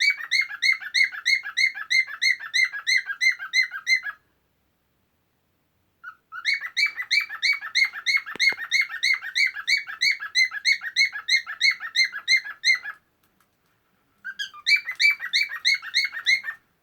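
Male cockatiel singing its courtship song: a quick run of repeated chirping notes, about three a second. It breaks off twice for a couple of seconds and starts again each time.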